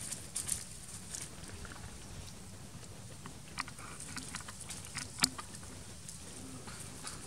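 Dry leaf litter crackling and rustling in scattered crisp clicks as a young macaque moves over it, with one sharper snap about five seconds in.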